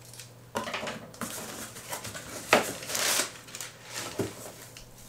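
A small cardboard box being opened by hand: its flaps scraped and rustled in short scratchy bouts, loudest about two and a half seconds in.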